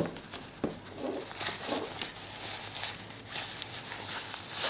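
Hands handling a small flashlight: a sharp click at the start and another shortly after, then light rustling and scraping.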